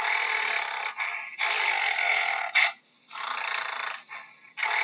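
Gorilla giving noisy, breathy vocal sounds in a repeating pattern: a long burst of about a second followed by a short one, with brief pauses between.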